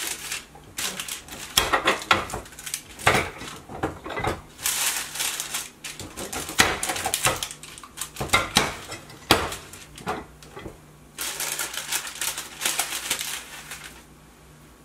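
Tortilla press being closed and pressed on a ball of empanada dough: a run of irregular clicks and knocks from the press and the counter, with parchment paper crinkling in two longer stretches, about five seconds in and again near the end.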